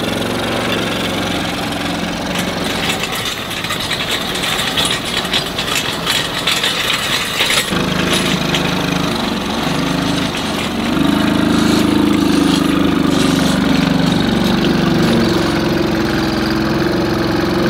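Small gas engine of a kids' ride-on tractor running under load as it pulls a plow through dirt, getting louder from about eight seconds in.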